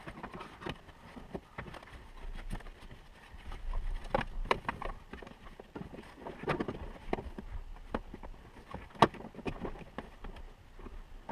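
Scattered clicks, taps and knocks of plastic seat-belt anchor covers and trim being handled and pressed into place inside a vehicle, with sharper snaps about four and a half and nine seconds in.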